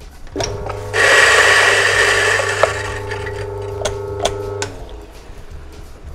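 Electric coffee grinder grinding an 18 g dose of beans to a medium grind. The motor starts, and the loud grinding of beans comes in about a second in, then thins out as the beans run through. The motor runs on with a steady hum and stops a little before the end.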